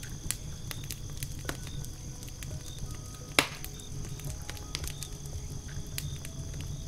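Wood campfire crackling, with irregular sharp snaps from the burning logs and one much louder pop about halfway through.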